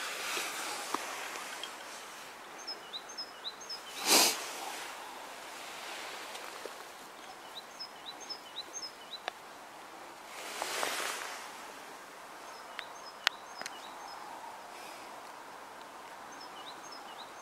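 Open-air ambience with small birds chirping faintly in short groups of high notes, a few light clicks, a brief loud burst of rustling noise about four seconds in, and a softer swell of noise around eleven seconds.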